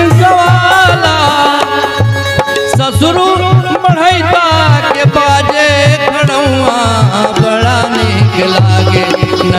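Live Bhojpuri folk-song accompaniment between sung lines: a hand-drum beat with a wavering melodic instrument line over it.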